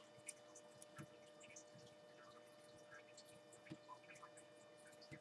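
Near silence: a faint steady hum with scattered soft ticks and scratches of a marker writing on a whiteboard.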